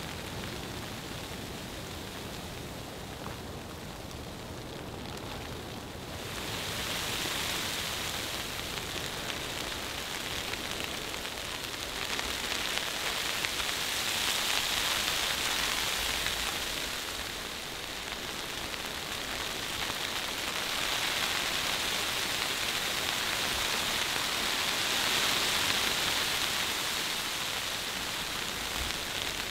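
Fine, dry snow falling on a tarp: a steady hiss of tiny grains striking the fabric, swelling and easing in slow waves every few seconds.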